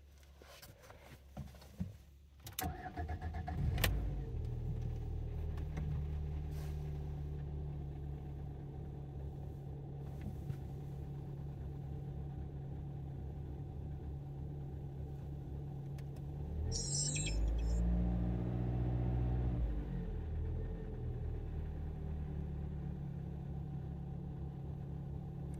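Car engine started cold, catching about two and a half seconds in and settling into a steady idle; the owner hears the hydraulic lifters tapping for a couple of seconds after the start. About two-thirds of the way through, the idle note shifts and swells briefly, with a short hiss.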